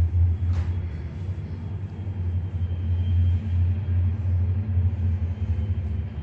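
Low, steady rumble of a diesel freight train, the Ohio Central's locomotives running nearby in the dark.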